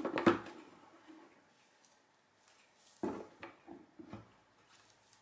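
A few short knocks and clatters of things being handled on a worktop, one cluster at the start and several more about three seconds in.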